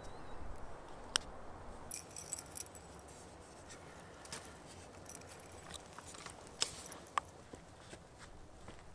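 Small gear being handled by hand: light metallic jingling and a few sharp clicks, as a knife and a fishing rod with a metal lure are handled.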